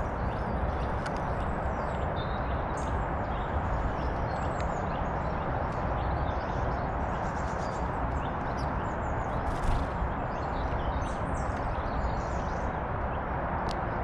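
Steady outdoor rumble with short, faint chirps of small garden songbirds above it and light taps, as small birds peck seed on a wooden bird table. A short louder rustle comes about ten seconds in.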